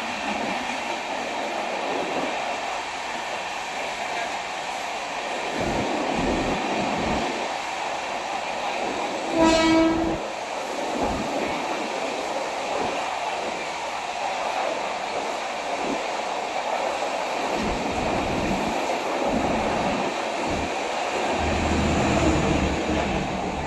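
A passenger train with LHB coaches runs on the rails with a steady rumble and rail noise. About ten seconds in, the locomotive's horn gives one short, loud blast.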